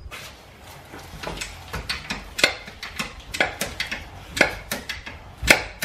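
Mechanical jack-up wheel dolly being pumped by its foot pedal: a series of sharp metal clicks, about two a second, as the ratchet catches its steps one after another and squeezes the rollers in under the tire to lift it.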